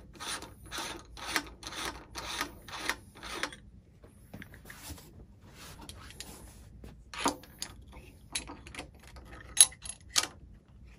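A threaded visual back being unscrewed by hand from the rear cell of a Celestron 8-inch Schmidt-Cassegrain telescope: about seven rasping rubs, roughly two a second, over the first three and a half seconds. Then come scattered sharp clicks and light knocks as a metal 2-inch visual back is handled and started onto the threads, the loudest click near the end.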